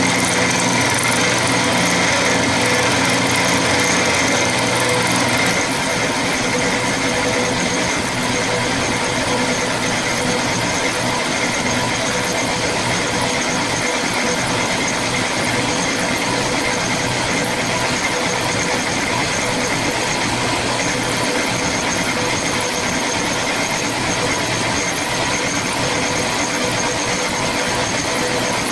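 End mill on a milling machine cutting 303 stainless steel, a steady machining noise with several fixed whining tones. A lower hum drops away about five seconds in.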